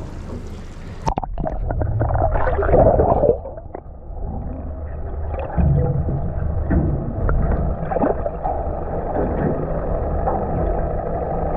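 Water splashing at the boat's side, then about a second in the sound turns suddenly muffled as the camera goes under the surface: gurgling, bubbling water rumble heard underwater, with a steady low hum beneath it.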